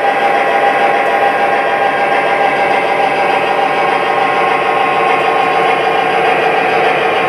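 MTH Proto-Sound 2 sound system of an O-scale Southern EMD GP35 model playing its diesel idle through the locomotive's small speaker: a steady engine hum.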